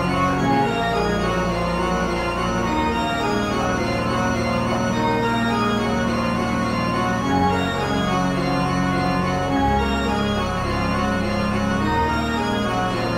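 Music of sustained organ-like keyboard chords, the chord changing every few seconds, with no singing.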